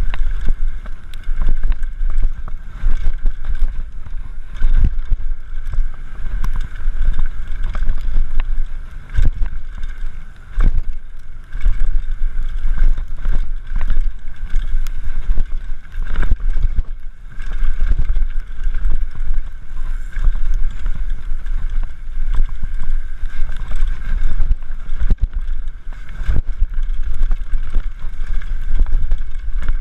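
Mountain bike ride heard from an on-board action camera: heavy wind buffeting on the microphone, with frequent knocks and rattles from the bike over rough ground and a steady high whine throughout.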